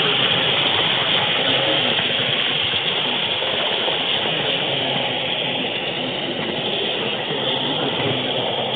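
Steady running noise of an N scale model train carrying the camera, its wheels rolling on the track close to the microphone.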